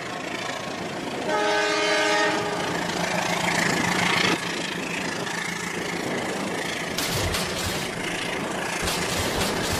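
Toy trains running on plastic track with a steady whir. A horn sounds for about a second and a half near the start. From about seven seconds in come a few sharp plastic clatters as the trains collide and derail.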